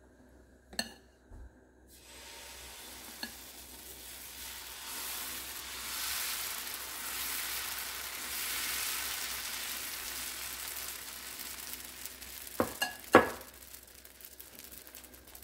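Dosa batter sizzling on a hot iron tawa as it is poured and spread in circles with a ladle: the hiss comes in about two seconds in, swells through the middle and slowly fades. A couple of sharp clicks sound near the end.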